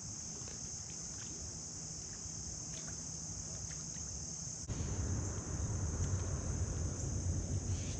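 Insects, such as crickets, singing in a steady, unbroken high-pitched drone. Partway through, a low rumble joins it.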